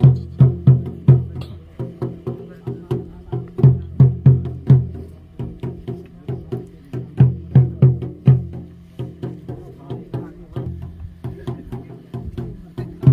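Music with a fast percussion beat: quick, even strokes with clusters of strong low drum hits every few seconds, over a steady low bass.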